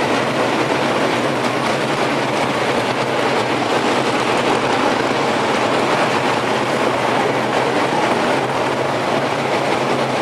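A pack of dirt modified race cars running past together in formation. The many engines blend into one dense, steady rumble.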